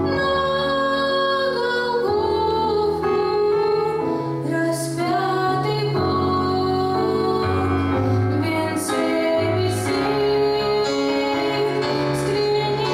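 Female voices singing a song to instrumental accompaniment, with held chords and a moving bass line.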